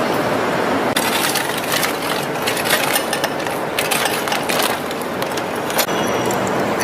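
Steady rushing background noise with a run of sharp clicks and rattles from about a second in until about five seconds in.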